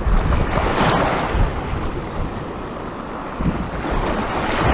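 Small waves breaking and washing around rocks in shallow surf, swelling about a second in and again near the end, with wind buffeting the microphone.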